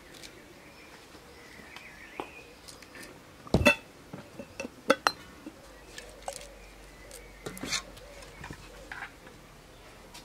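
A few sharp clinks and knocks of a metal ladle against a glass jar as thick rose jam is ladled in, the loudest about three and a half seconds in. Faint bird chirps are behind them.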